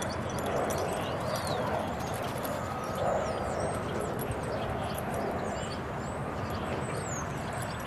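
Steady outdoor background noise with many short, high chirps scattered through it, like small birds calling.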